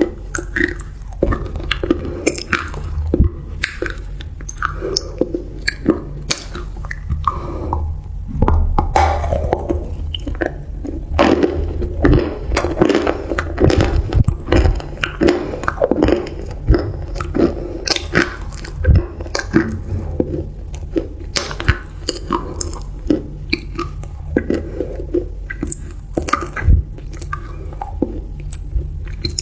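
Close-miked chewing and biting of crunchy food, with many short sharp crunches throughout.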